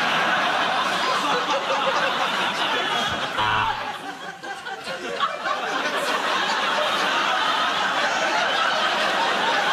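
Studio audience laughing loudly after a punchline. The laughter dips for a moment about four seconds in, then swells again.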